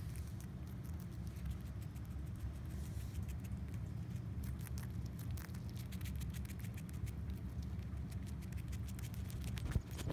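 Pet rat chewing a lettuce leaf: many small, quick crunching clicks over a steady low hum. A louder bump near the end.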